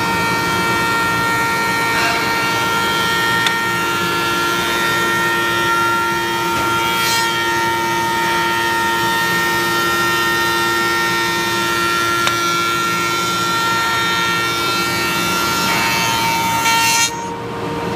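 Wood moulding machine (Liyang MB9015H) running and cutting a wood strip as feed rollers push it through, a steady machine noise with several held tones over a hiss. The high hiss cuts off suddenly near the end while the machine keeps running.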